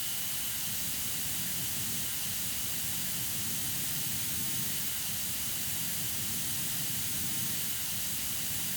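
Beliz Superbe professional hair dryer running steadily: a strong rush of air with a high, steady whine from its 110,000 rpm turbine motor.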